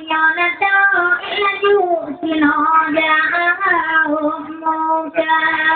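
Women singing a slow chant in long held notes that slide and bend from one pitch to the next.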